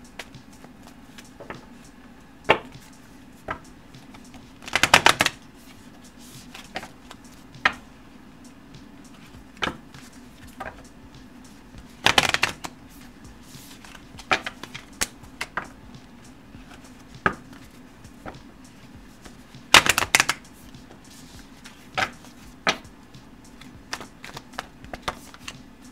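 A deck of cards being shuffled by hand before a card is drawn: three short riffling bursts several seconds apart, with scattered single clicks and taps of cards between them, over a faint steady hum.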